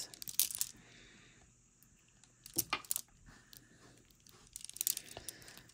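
Strand of large, heavy beads clicking against one another as it is handled, in scattered light clicks: a few at the start, a small cluster about two and a half to three seconds in, and more near the end.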